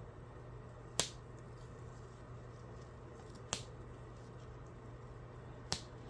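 Three sharp clicks, about a second in, midway and near the end, over a steady low hum.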